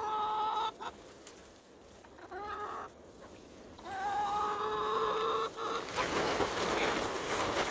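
Chickens giving long, level-pitched calls, three in a row with the middle one short. Near the end, wind rushes across the microphone.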